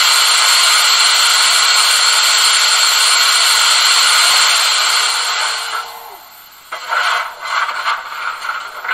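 Cylinder-steam effect of a gauge 1 brass model Prussian T3 steam tank locomotive: a loud steady hiss of escaping steam with a faint steady hum under it, which dies away about six seconds in. Quieter uneven puffs follow.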